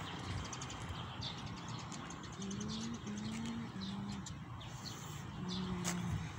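Low cooing of a dove: three coos in a row about two and a half seconds in and one more near the end, with short high bird chirps over a steady background hiss.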